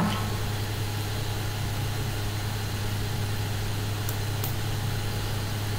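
Steady low hum with an even background hiss, and two faint clicks about four seconds in.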